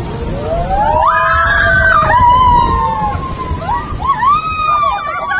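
Several log flume riders screaming together over rushing water. Long cries rise about half a second in and are held for a couple of seconds, followed by shorter whoops near the end.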